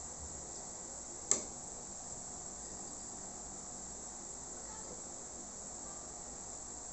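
A steady high-pitched hiss, with one sharp clink of tableware about a second in.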